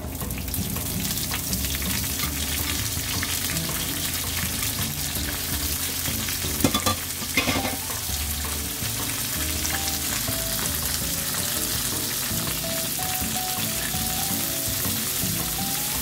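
Cicadas deep-frying in hot canola oil in a frying pan, a steady loud sizzle as they are stirred with wooden chopsticks, with a few sharp clicks about seven seconds in.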